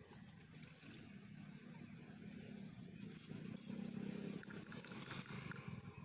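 A distant engine's low hum swells to its loudest about four seconds in and then eases off, with a few faint light clicks over it.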